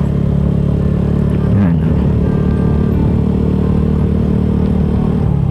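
Motorcycle engine running steadily while riding, heard from the bike itself, with a brief wobble in pitch about a second and a half in.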